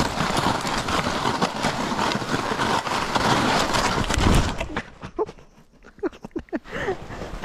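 Short forest skis hissing through snow on a fast downhill run, ending in a heavy thump about four seconds in as the skier falls into the snow. After that comes a quieter stretch of scattered snow crunches and rustling.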